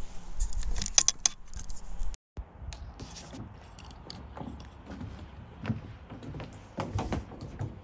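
A few sharp clicks and knocks, then footsteps in sandals on a wooden deck: irregular soft thuds and taps over a low background.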